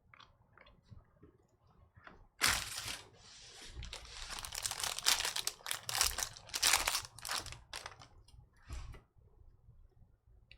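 Foil trading-card pack wrapper being torn open and crinkled, a dense crackle that starts about two and a half seconds in and dies away near nine seconds. A few faint clicks come before it.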